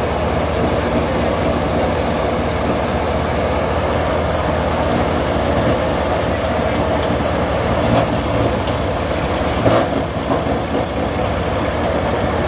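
Vishwakarma threshing machine running steadily while plant stalks are fed into its hopper: a continuous loud mechanical drone. A couple of brief louder knocks come about two-thirds of the way through.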